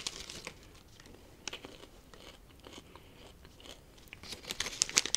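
Small red popcorn snack bag crinkling faintly as it is opened and handled, with a denser, louder run of crisp crackles near the end.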